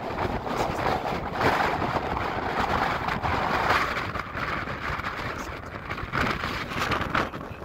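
Gusty wind buffeting the microphone, a rough rushing noise that rises and falls.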